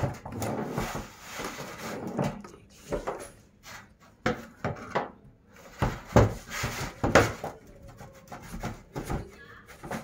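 Plastic hand-vacuum parts being handled and fitted together, the extension stick pushed onto the cleaner, with the motor off. Irregular rubbing and scraping, with a few sharp knocks and clicks about six to seven seconds in.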